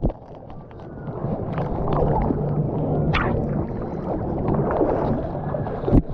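Pool water sloshing and gurgling around a GoPro, muffled, as the rider moves through the splash pool at the bottom of a water slide.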